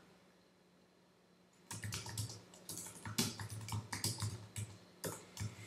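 Typing on a computer keyboard: after a short quiet start, a quick, uneven run of key clicks begins a little under two seconds in and keeps going.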